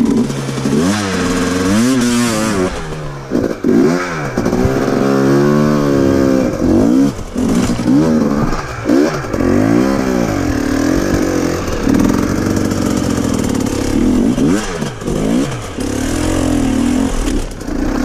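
KTM dirt bike engine revving up and falling back again and again as the bike is throttled up a rocky climb, with clatter of the bike over the rocks.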